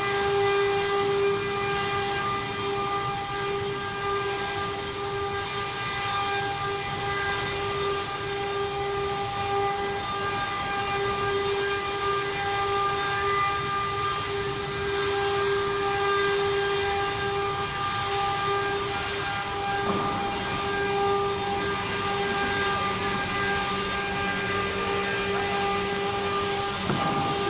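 CNC router spindle running at a constant high speed while machining wood: a steady, unchanging whine over a hiss of cutting noise.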